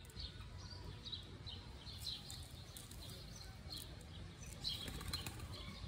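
Birds chirping in short, scattered calls over a steady low rumble of outdoor noise.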